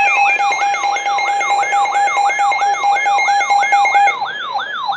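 Weather radio alert alarm for a high wind warning: a siren that sweeps down in pitch about three times a second, over the station's steady warning alarm tone. The steady tone cuts off about four seconds in, while the sweeping siren keeps going.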